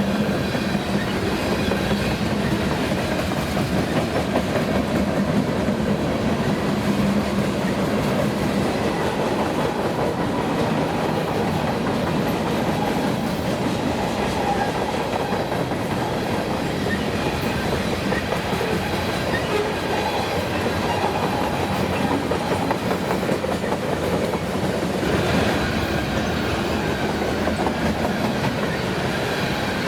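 Freight train cars rolling past, their wheels clacking steadily over the rail joints in a continuous loud rumble.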